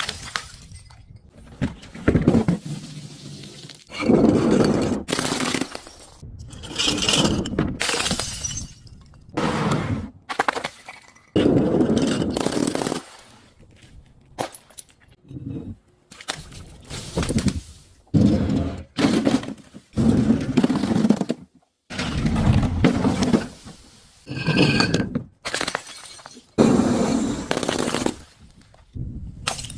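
Objects, among them glass bottles, being crushed and breaking: about a dozen separate bursts of crunching and cracking, each one to two seconds long and cut off abruptly.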